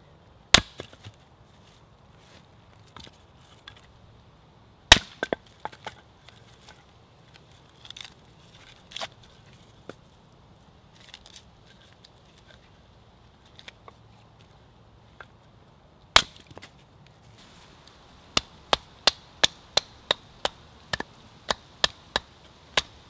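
A small hatchet splitting birch logs on a chopping block: a few loud, sharp chops spaced several seconds apart, with lighter knocks of wood between. Near the end, a quick, even run of about a dozen knocks, roughly three a second.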